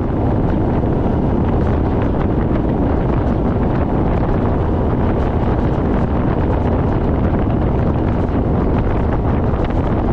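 Steady wind rush on the microphone over a small aluminium boat's outboard motor running at speed, with the boat up on the plane.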